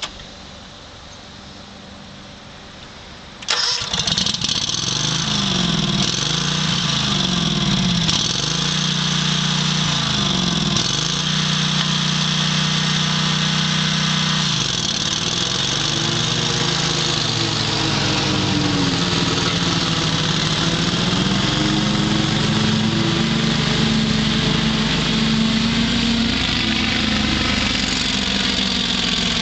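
Great Dane Super Surfer 52-inch lawn mower's engine cranking and catching about three seconds in, then running, its speed rising and falling several times.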